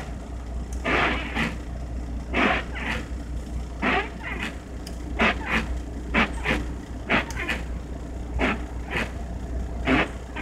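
A semi-truck's four-way hazard flasher clicking on and off, often in pairs, about once a second, over the steady low hum of the idling diesel engine. The hazards are still switched on.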